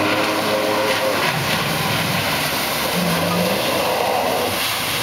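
Yamaha Exciter 270 jet boat running at speed: a steady engine drone mixed with the rush of spray and water.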